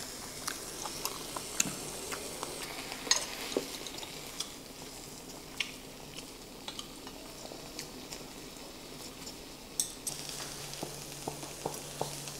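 Beef sizzling on a small tabletop grill pan, a steady frying hiss with scattered crackles and pops, and a few sharper clicks of metal tongs on the grill.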